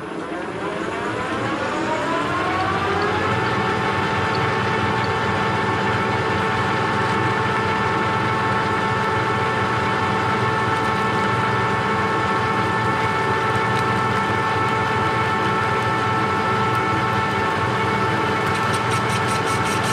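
Metal lathe starting up and spinning up to speed at a higher speed setting: its whine of several tones rises over the first three seconds, then the lathe runs steadily at speed.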